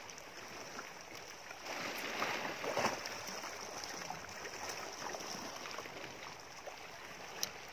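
Water sloshing and lapping against the hull of a drifting outrigger boat, with no engine running; the sloshing swells louder about two to three seconds in.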